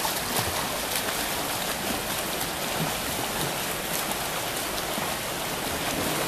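Steady, dense splashing of a pack of swimmers doing front crawl through river water: arms and kicks churning the surface in a continuous patter of small splashes.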